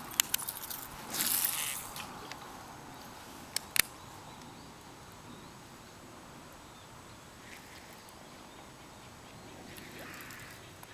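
A few sharp clicks and a brief rustle close by in the first seconds, with two more sharp clicks a little later, then quiet outdoor background.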